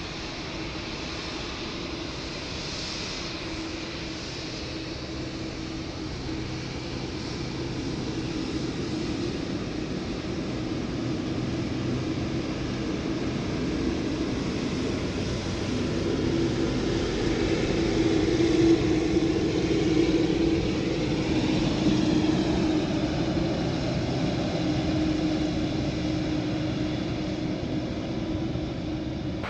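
Jet engines of a taxiing Boeing 787-9 airliner running at low taxi power: a steady rumble with an even hum, growing louder as the aircraft comes closer and easing a little near the end.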